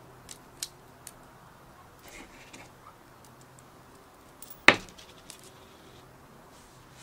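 Small clicks of copper-plated steel euro cent coins snapping onto a bar magnet and onto each other. There are a few light ticks in the first second, then one sharp metallic click with a brief ring about four and a half seconds in.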